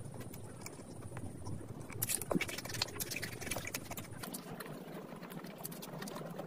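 Close-miked chewing of deep-fried samosas: crunching pastry and wet mouth clicks and smacks, with a louder cluster of crunches about two seconds in.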